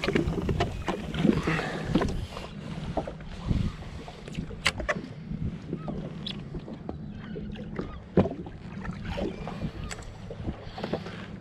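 Jet ski engine idling with a steady low hum, with scattered clicks and knocks from handling the fishing rod and reel.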